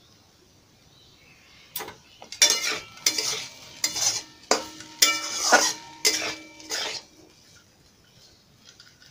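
A metal spatula stirring and scraping frying potatoes in a metal kadai on a gas stove, the pan clanking and ringing with each stroke. The quick run of clanks starts about two seconds in and stops about seven seconds in.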